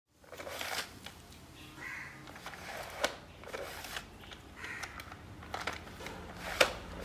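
Plastic rotating candy box being twisted open by hand, its petal-shaped trays swinging out with plastic rustling and clicking. There is a sharp click about three seconds in and a louder one near the end.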